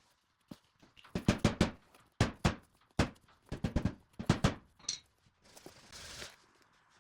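An irregular run of about a dozen sharp knocks and clacks over a few seconds, like hard tools being handled and set down, then a short scraping hiss near the end.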